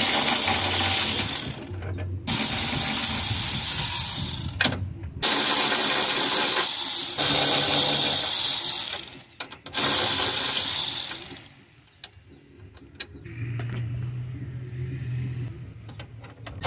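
Air ratchet running in four long bursts of a few seconds each, with short pauses between, unscrewing 13 mm bolts. A quieter stretch with a faint hum follows.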